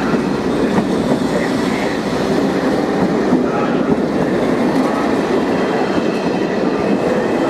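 Express-train passenger coaches rolling past as the train pulls away, with a steady rumble of wheels on the rails and some light clatter over the rail joints.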